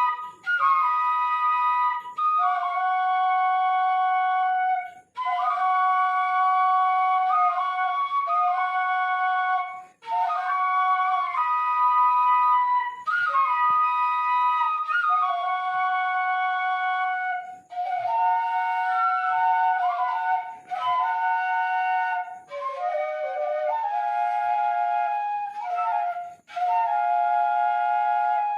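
Seruling emas, bamboo flutes, playing a tune together with several notes sounding at once. The music comes in held phrases a few seconds long, broken by short gaps.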